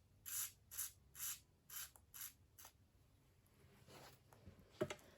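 A run of about six short, scratchy hand strokes, roughly two a second, growing fainter, then a few sharp clicks near the end.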